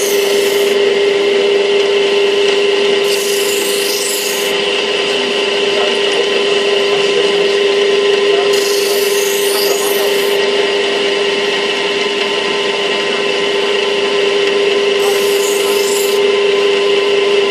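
A knife blade held against a spinning grinding wheel, a continuous rubbing grind over a steady machine hum. Hissier passes come and go every few seconds.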